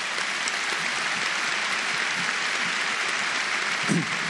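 A large arena audience applauding steadily, a dense wash of clapping with no break. A single voice briefly rises above it near the end.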